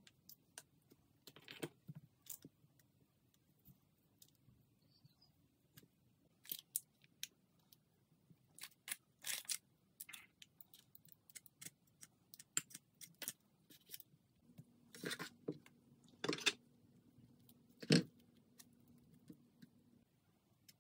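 Spoon and spatula scraping and tapping against a glass baking dish while spreading a soft chocolate layer and then a cream layer: scattered short scrapes and clicks, the loudest about 18 seconds in.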